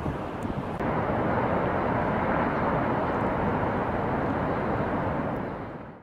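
Steady rushing noise of water pouring over Niagara Falls. It gets louder just under a second in and fades out at the end.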